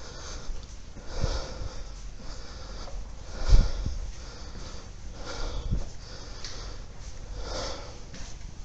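A person's breathing close to the microphone, a breath about every two seconds, with a dull thump about three and a half seconds in.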